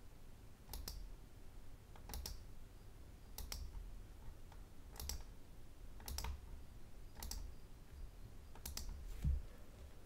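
Faint computer mouse clicks, about eight of them spaced a second or so apart, each placing an anchor point of a path with the pen tool. A soft low thump near the end.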